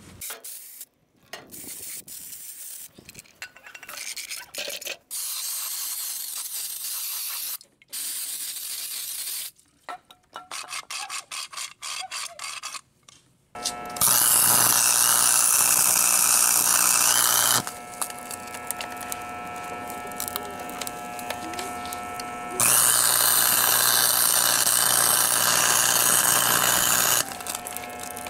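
Stick welding inside a lawn tractor differential carrier, welding the spider gears to lock the differential: two runs of steady arc crackle and hiss, about three and a half and four and a half seconds long, with a lower steady hum between them. Before the welding, short bursts of scraping and handling noise broken by abrupt cuts.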